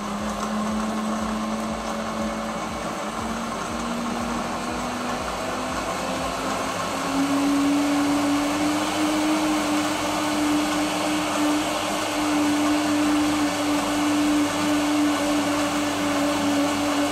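Commercial countertop blender running, blending banana, strawberries, milk and ice into a smoothie. Its steady motor hum rises in pitch and gets louder about seven seconds in.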